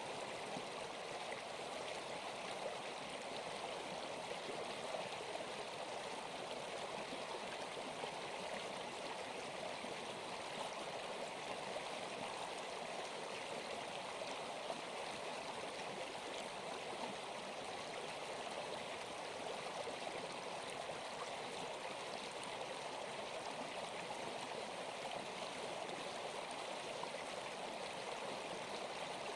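Steady rushing water, like a stream, running evenly throughout.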